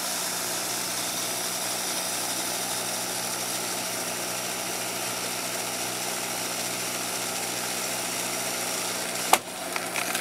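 Sony CV-2000 reel-to-reel videotape recorder rewinding at speed, a steady mechanical whir with several steady hum tones from its open tape transport. Near the end there is a sharp click as the tape runs out, and the whir drops away.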